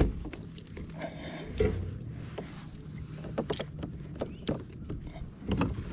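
Scattered knocks and clicks on the plastic hull of a fishing kayak as a rubber-mesh landing net holding a large northern snakehead is handled, with a heavier thump at the start and another about one and a half seconds in.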